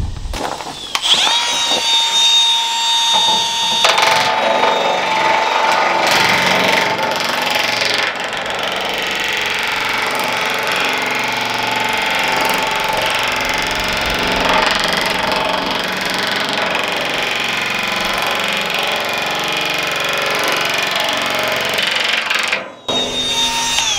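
Power nibbler cutting a ribbed metal roofing panel, running steadily with a high whine. It stops briefly near the end, then starts again.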